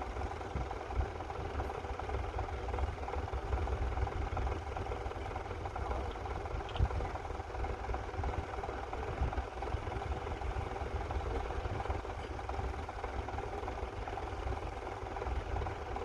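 Massey Ferguson 35 tractor engine running steadily as the tractor pulls a plough through the field.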